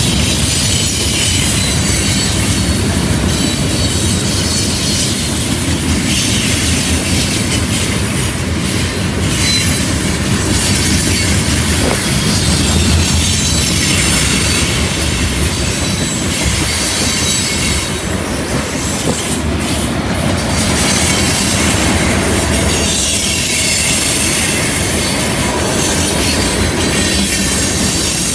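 A slow freight train's cars rolling past on a curve: steel wheels rumbling over the rails, with a high steady squeal from the wheels grinding against the curved rail.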